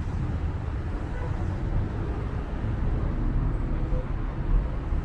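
City street ambience: a steady low rumble of road traffic, with faint voices of passers-by.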